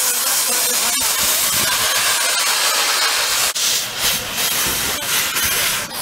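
Steam hissing loudly from the open cylinder drain cocks of the 1866 narrow-gauge 0-4-0 tank locomotive Dolgoch as it moves off, clearing water from the cylinders. A steady hiss for the first half, then it breaks into uneven separate puffs, with a single sharp click about a second in.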